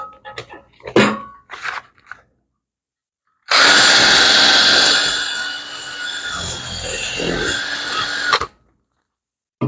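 A few light clicks and knocks, then an electric drill runs for about five seconds, boring out what is left of an old motorcycle steering stem lock. It starts loudest, eases a little partway through and cuts off suddenly.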